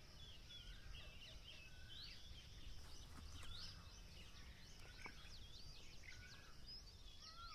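Faint chirping of small birds, many short rising and falling calls, over a low steady hum of room tone.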